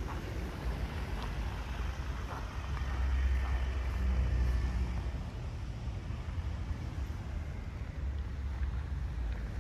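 City street ambience: a low rumble of road traffic passing along the embankment, swelling around the middle, with some wind.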